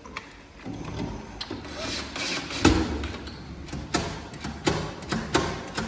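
Knocks and clatter of hand tools and lock parts against an aluminium door while a door lock is being fitted, with one loud thump about two and a half seconds in and lighter clicks after it.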